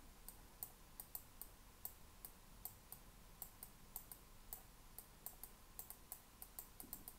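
Faint, irregular clicking from working a computer's keyboard and mouse, a few clicks a second.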